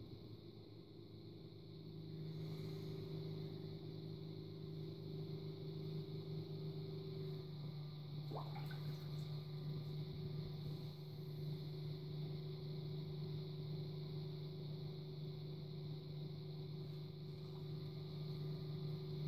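Electric potter's wheel motor humming steadily while wet clay is worked by hand on the spinning wheelhead, with soft watery sounds from the clay. The hum grows louder about two seconds in, and a brief rising squeak comes about eight seconds in.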